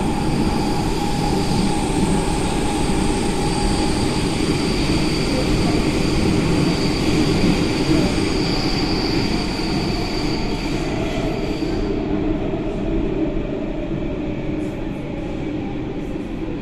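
Athens Metro Line 3 train running through a tunnel, heard from inside the carriage: a steady rumble of wheels on rail with a high, steady whine over it that stops about twelve seconds in.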